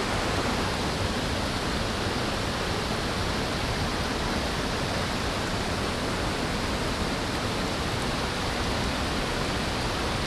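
Shallow creek water rushing steadily over rocks in a riffle.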